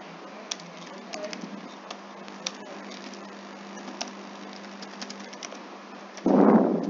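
Computer keyboard keys clicking irregularly as code is typed, over a steady low hum. Near the end a sudden loud, short rush of noise.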